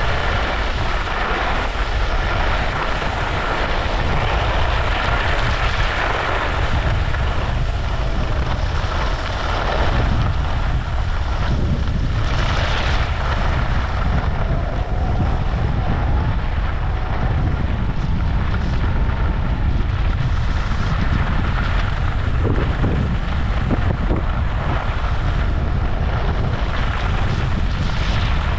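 Wind buffeting the microphone of a camera worn by a skier moving downhill, a steady rumble, with the hiss and scrape of skis on groomed snow.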